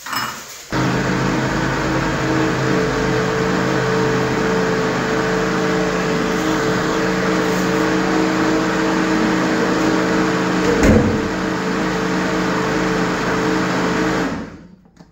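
Electric countertop blender running steadily, puréeing cooked butternut squash soup. It starts about a second in, gives a brief knock about two-thirds of the way through, and cuts off just before the end.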